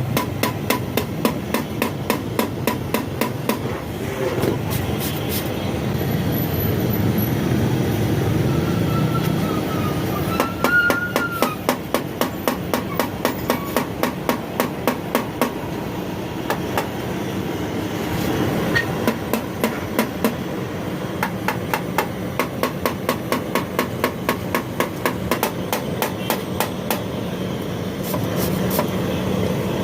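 Hammer tapping on sheet metal, most likely a radiator tank being worked, in a fast, even rhythm of about three to four blows a second. The blows let up for several seconds after about four seconds in, then resume.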